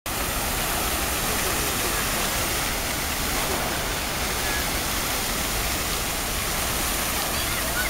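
Fountain jets splashing into a shallow pool: a steady rush of falling water.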